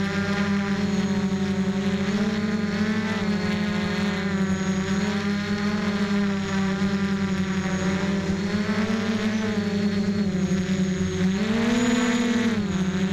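Motor and propeller of a radio-controlled aircraft heard from its own onboard camera: a steady whine with many overtones that wavers slightly with the throttle and rises briefly in pitch near the end before settling back.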